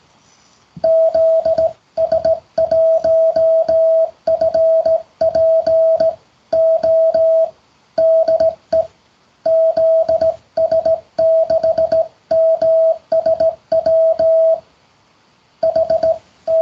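Morse code practice tone: a steady beep of a little over 600 Hz keyed on and off in dots and dashes, with short gaps between letters and longer pauses between words, and a faint click at each key-down and key-up.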